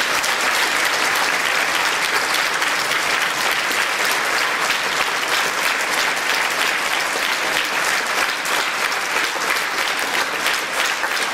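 Concert audience applauding, a dense, steady wash of clapping, with single claps standing out more clearly near the end.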